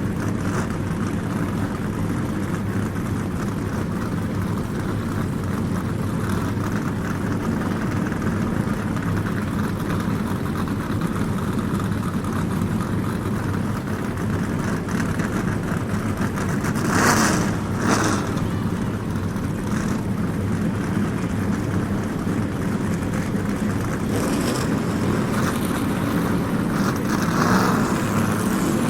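NASCAR stock car engines running in a continuous low drone, with two short louder swells about 17 and 18 seconds in and a fainter one near the end.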